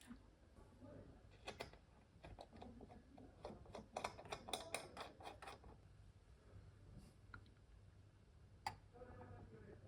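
Faint scattered clicks and light taps, with a quick run of them about four to five seconds in and a single sharper click near the end, over a faint low hum.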